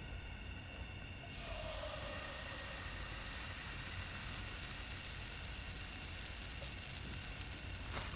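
Pancake batter sizzling with a steady hiss as it is poured into a hot nonstick frying pan, the hiss starting about a second in. A few crackles near the end.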